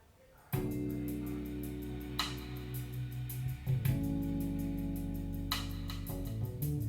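Instrumental intro of a blues rock song: guitar and bass over a steady ticking beat of about four ticks a second, starting about half a second in.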